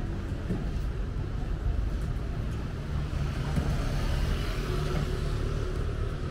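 City street traffic: a motor vehicle's engine running with a steady low hum, and a swell of tyre and road noise about halfway through as a vehicle passes.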